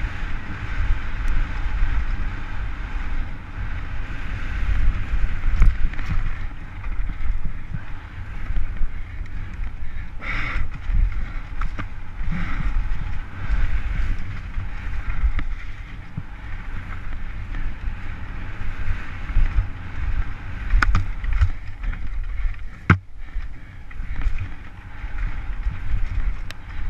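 Downhill mountain bike clattering at speed over rough dirt, rocks and roots, with wind rushing over the helmet-mounted microphone and sharp knocks from impacts now and then.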